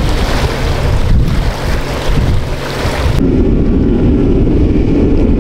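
Strong wind buffeting the microphone as a loud, uneven rumble with hiss. A little over three seconds in the sound changes abruptly to a steadier, duller rumble.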